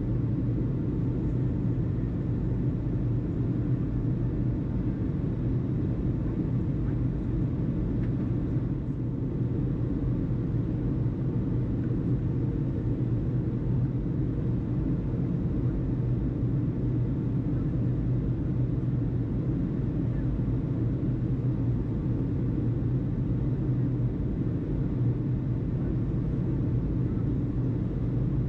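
Steady low rumble with a hum, unchanging throughout.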